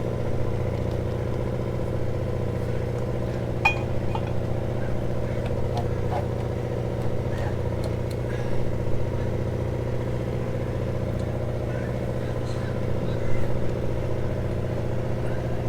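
Steady drone of an engine running at a constant speed, with a few faint metal clicks and clinks of a tool working a turnbuckle on the mast stays.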